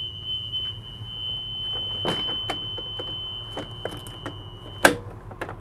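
A school bus emergency exit alarm buzzer sounds a steady high tone, with the clicks and knocks of the roof hatch being handled. About five seconds in, the buzzer cuts off at a sharp clack as the hatch is shut. The buzzer signals an open emergency exit.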